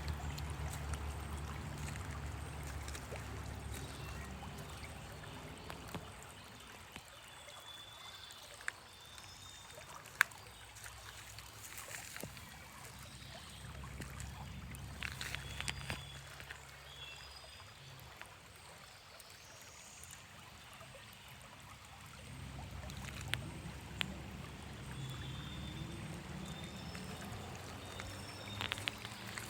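Faint outdoor ambience: a trickle of running water under a low hum that fades away about six seconds in and comes back later, with a few faint clicks.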